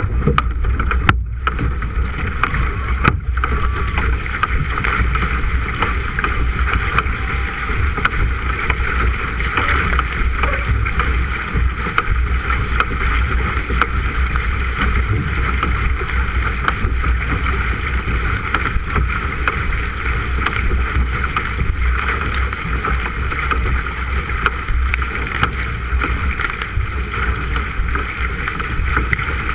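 K1 sprint kayak paddled hard: paddle blades splash into the water on both sides over a steady rush of wind and water on a bow-mounted microphone.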